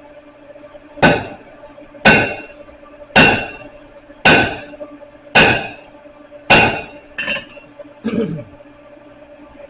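Hand hammer striking the hot end of a rebar bar on an anvil to upset it: six even blows about a second apart, each with a short metallic ring, then a few lighter, quicker taps near the end. A low steady hum runs underneath.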